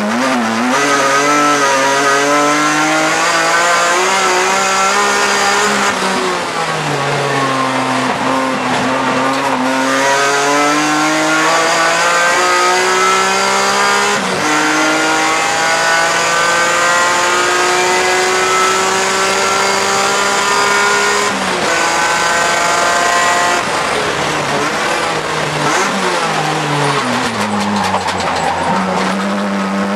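BMW E46 M3 race car's straight-six engine heard from inside the cockpit at racing speed: revs climb through the gears with quick upshifts, fall away twice under braking and downshifts, and rise again near the end.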